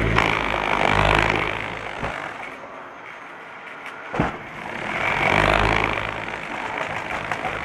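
Dyson Light Ball upright vacuum cleaner running and sucking up crunchy debris. Its sound swells and fades twice as it is pushed and pulled, with a sharp click about four seconds in.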